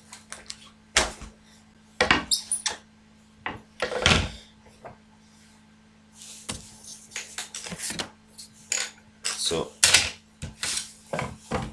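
Drawing instruments being handled on a drawing board: a wooden ruler and a plastic set square set down and slid into place, giving a run of irregular knocks and clicks with a brief scrape a little after halfway.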